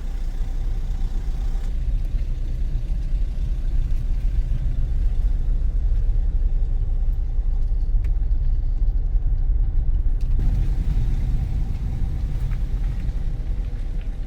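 Loud, steady low rumble with a restless, fluttering level, changing abruptly about two seconds in and again about ten seconds in.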